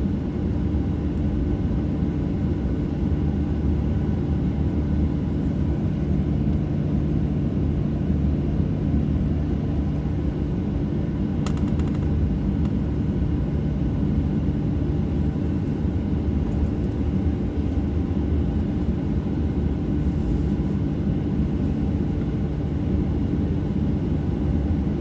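Boeing 737-800 with its CFM56-7B turbofans at ground idle, heard inside the cabin: a steady low rumble overlaid with an even hum of several steady tones, while the jet sits still. A brief click about halfway through.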